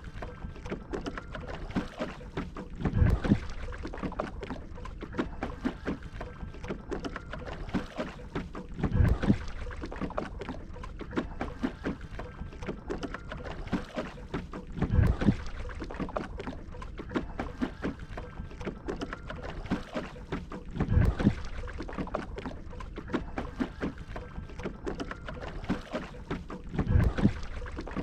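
Shikara being paddled across a lake: a paddle stroke through the water about every six seconds, five in all, with steady water noise between strokes.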